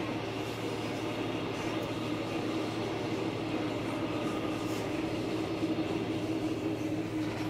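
Steady rolling rumble of a passenger train, heard from inside a moving coach, with a steady low hum. The train is overtaking a slower diesel-hauled train on the adjacent track.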